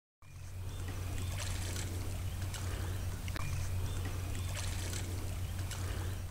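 Lake water trickling and lapping at the shore, with a steady low rumble underneath and faint small splashes.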